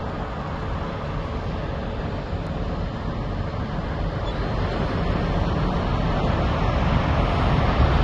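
Steady traffic noise, a low rumble with hiss, growing a little louder over the last few seconds.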